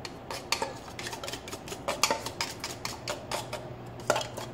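A metal table knife scraping and clicking against the inside and rim of a tin can, a run of quick irregular clicks, as thick sweetened condensed milk is scraped out into a saucepan.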